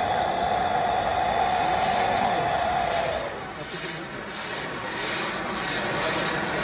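Firework fountains and spinning fire wheels on a tall firework tower, burning with a steady loud hissing rush and a held whistle. The whistle fades out about three seconds in, and after a short lull the rush builds again with a crackle.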